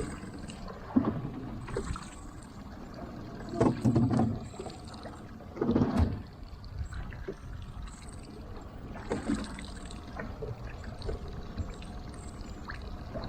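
Fishing boat at sea: a steady wash of water and hull noise, with irregular heavy thumps and splashes about 1, 4, 6 and 9 seconds in.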